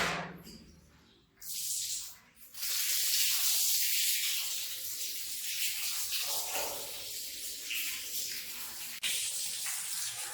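Water spraying onto a rug from a nozzle: a short burst of hiss, then a steady spray.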